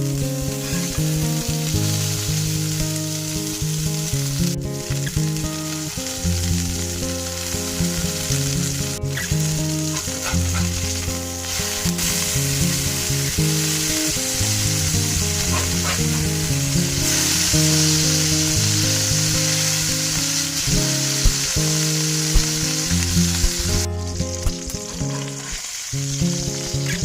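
Food frying in a hot pan, a steady sizzle that grows louder past the middle and drops off sharply near the end, with background music under it.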